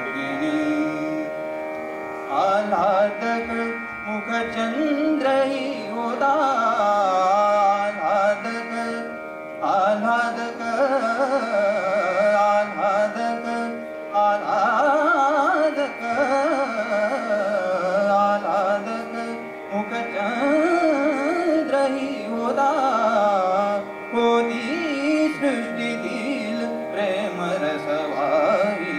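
Man singing Marathi Natya Sangeet in Raag Darbari: long, ornate, wavering vocal phrases with short breaks between them, over a steady drone.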